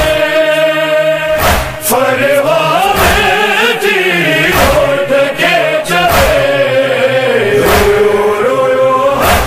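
Sindhi noha: a young singer's voice chanting a lament in long held, wavering notes, with backing voices. A heavy beat falls about every second and a half.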